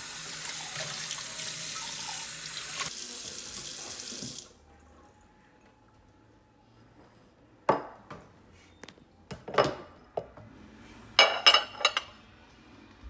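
Kitchen tap running into a stainless steel sink as dishes are rinsed, shut off about four seconds in. Ceramic plates and bowls then knock and clink a few times as they are set down to dry, loudest in a quick cluster near the end.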